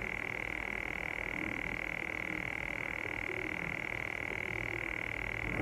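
Steady high-pitched electronic whine with a low hum and a fast, even flutter: the recording noise of the old phone's microphone that viewers complain about and that the new phone is meant to cure.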